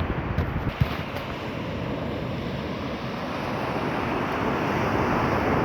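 Steady rushing of a waterfall, with wind buffeting the microphone near the start and the rush growing a little louder toward the end.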